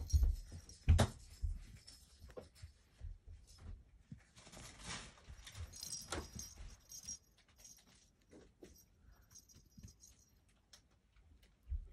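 Plastic lattice cat-toy ball on a wand jingling and rattling as a kitten bats at it, with soft rustling and thumps against a fleece cat bed; one louder thump about a second in.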